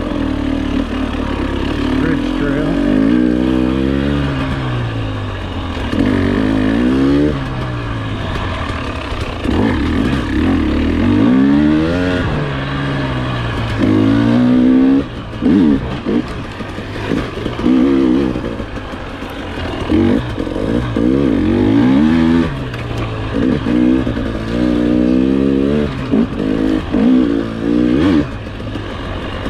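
Two-stroke single-cylinder engine of a KTM 300 XC-W TPI dirt bike under way, revving up and down again and again with the throttle, its pitch rising and falling every second or two, with a few quick throttle cuts about halfway through.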